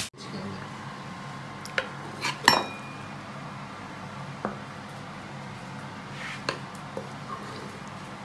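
Metal ladle clinking against a wok and a ceramic bowl as stir-fried beef and vegetables are scooped out. There are a few scattered clinks, the loudest about two and a half seconds in with a short metallic ring, over a faint steady hum.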